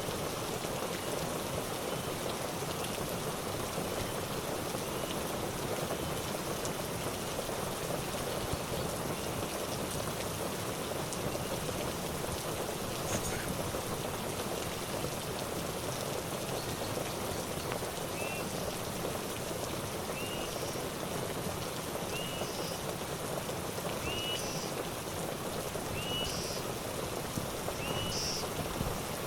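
Steady rain-like noise. A short chirping call repeats about every two seconds through the second half.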